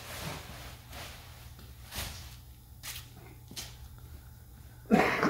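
Footsteps on a concrete floor over a faint steady low hum, with a short louder sound about five seconds in.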